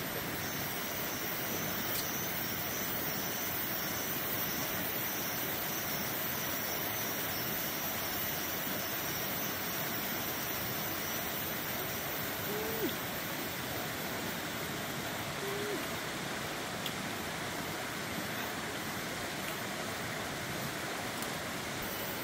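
A steady rushing noise, with two short low calls that drop in pitch at the end, a few seconds apart in the middle.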